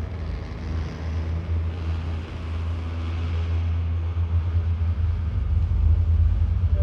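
Designed spaceship pass-by sound: a deep, steady rumble with a rushing, noisy layer over it, made from a stack of plastic stackable chairs dragged across a linoleum floor, layered, EQ'd and given added reverb. It grows slowly louder toward the end.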